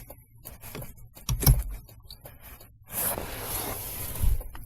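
Handling noise of a bulb being swapped in a car's turn-signal socket: small clicks and knocks, a thump about a second and a half in, a scraping rustle from about three seconds in, and another thump near the end.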